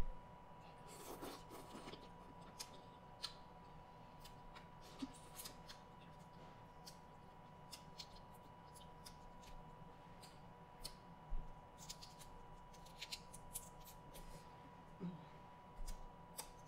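Faint, scattered crackling and clicking of a cooked shrimp's shell being peeled by hand, mixed with soft mouth sounds of eating.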